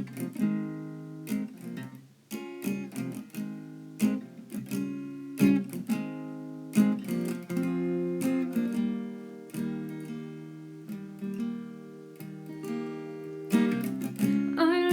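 Acoustic guitar playing a song's intro: chords struck every second or so and left to ring, with single notes picked in between.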